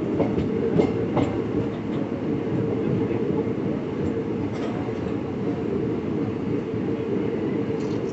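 Passenger train running along the line, heard from inside the coach: a steady low rumble of the wheels on the rails, with a few sharp clicks of the wheels, mostly in the first second and a half and once more about halfway through.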